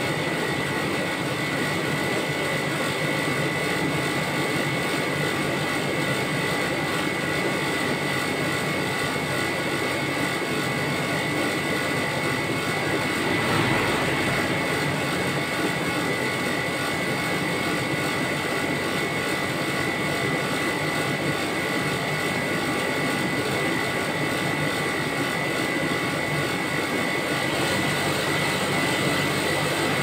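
Rolled-ice-cream machine's refrigeration unit running: steady whir of its condenser fan and 1 pk R32 compressor, with a steady high whine over it, as it holds the cold plate well below freezing.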